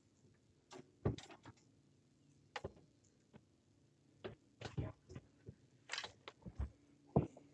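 A string of irregular knocks and clicks as gear is handled and bumped against the deck of a metal fishing boat.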